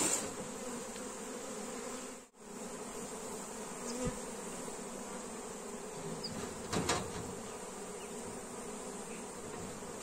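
Honeybee swarm buzzing as a steady mass hum: a swarm freshly shaken out of a trap onto the frames of a hive, crawling down into it. A brief knock sounds about seven seconds in.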